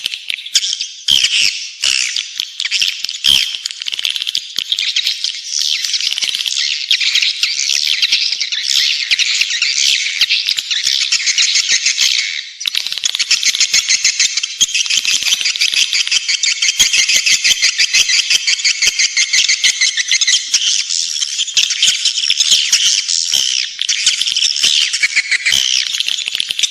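Swiftlet lure call: a dense, continuous, high-pitched twittering and rattling chatter of many swiftlets, of the kind played to attract swiftlets to roost and nest in a swiftlet house. It breaks off briefly about halfway through.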